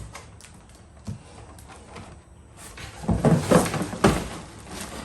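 Knocks and scraping of mower parts and packaging being handled and moved: one knock about a second in, then a louder run of knocks and scraping about three to four seconds in.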